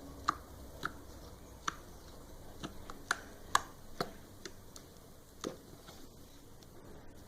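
Slime being squeezed and stretched by hand, giving about a dozen irregular, sharp wet clicks and pops as air pockets burst.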